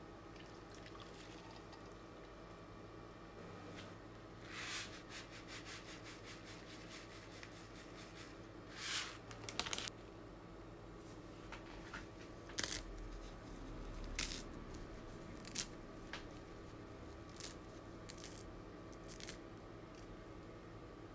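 Kitchen food-preparation handling sounds: scattered soft rustles and light clicks, a few at a time, over a faint steady hum.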